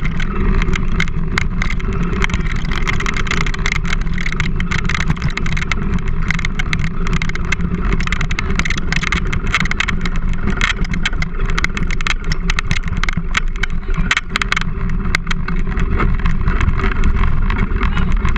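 Wheels rolling fast over a rough dirt trail, heard from a handlebar-mounted camera: a continuous rumble with many small rattles and knocks from the bumps.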